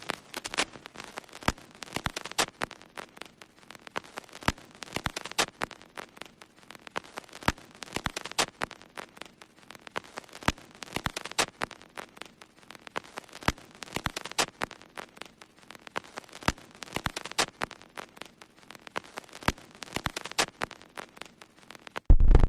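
Irregular crackling: many sharp clicks and pops over a faint hiss, with a short louder burst near the end.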